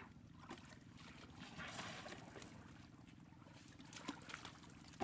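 Faint outdoor ambience: a steady low hum, a soft hiss of noise about two seconds in, and a few small clicks.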